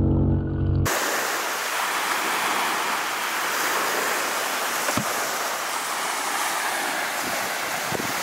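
For under a second, a steady low hum heard underwater in a live bait well, the kind its aerator pump makes. Then a sudden change to the steady rush of gentle surf washing on the beach, with a single soft knock about five seconds in.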